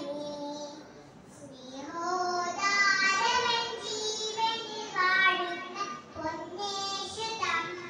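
A young girl singing solo into a microphone in long held, gliding notes, with a short pause between phrases about a second in.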